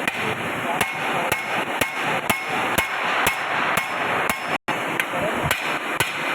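Hand hammer striking a centrifugal pump part being repaired, with steady blows about two a second and a brief gap a little past halfway.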